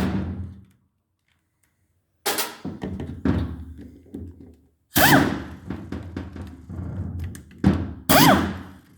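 Metal knocks and clunks of tools working the Allen-head bolts out of a 2004 Subaru single-overhead-cam cylinder head, with two short whines that rise and fall in pitch, about five and eight seconds in. The sound drops out completely for about a second near the start.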